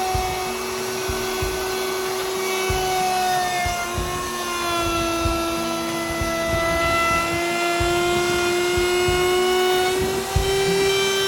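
Router with a laminate trim bit running at speed, cutting Formica laminate: a steady high whine that sags slightly in pitch as the bit loads in the cut and then rises again, over scattered knocks and rattling.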